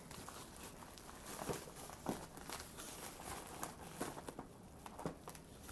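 Faint rustling and crinkling of packaging as a parcel is unpacked by hand, with a few scattered light clicks and taps.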